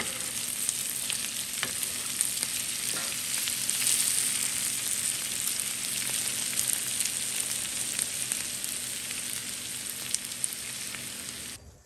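Onions, green peppers and bacon sizzling steadily as they fry in rendered bacon fat in a pan, with a few light clicks of metal tongs against the pan as they are stirred. The sizzle cuts off suddenly near the end.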